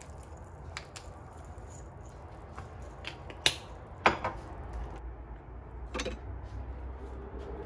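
Hand pepper grinder twisted over a pan, grinding peppercorns with a run of dry little clicks, then two sharper clicks about three and a half and four seconds in. Near the end a glass mug knocks against a coffee machine's drip tray.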